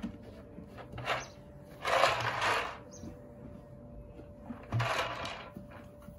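A horse nosing a plastic treat ball about in straw bedding: three short rustling, breathy bursts, the loudest about two seconds in.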